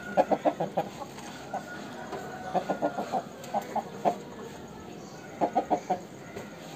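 Aseel chicken clucking in quick runs of short notes, with a few single clucks between the runs.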